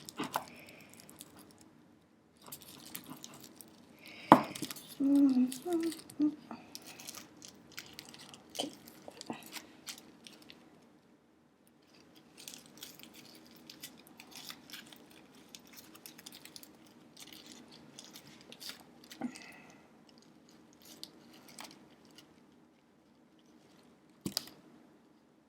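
Quiet handling noises from picking at a knot on a small package: scattered light clicks, taps and rustles, with a sharper click about four seconds in and another near the end.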